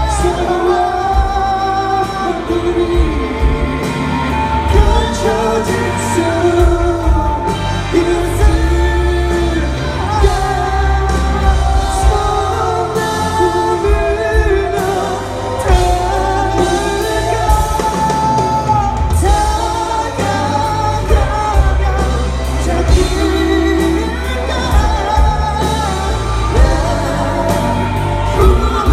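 Live pop song performance: several voices singing in Korean over a band with a steady bass and drum beat, in the reverberant sound of a concert hall.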